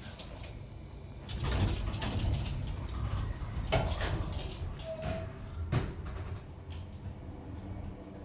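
Small passenger elevator's doors sliding shut with a low rushing rumble, followed by two sharp mechanical clunks a couple of seconds apart as the car's machinery engages, over a steady low hum.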